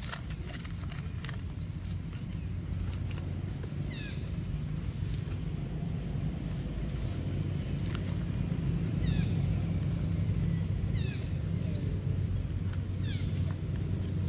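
Baby long-tailed macaques giving short high squeaks that fall in pitch, repeated every second or two, over a low engine rumble that grows louder toward the end.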